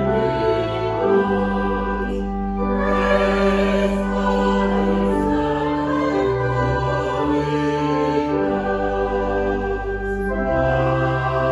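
Slow sacred choral music: long held chords over a low bass, the harmony changing every few seconds.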